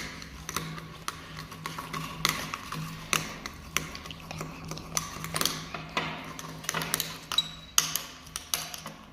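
Spoon clicking and tapping against a bowl in quick, irregular knocks while stirring a slime mixture.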